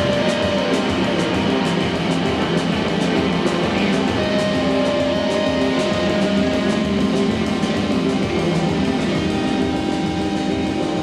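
Background music led by guitar, with a steady beat and held notes, no vocals.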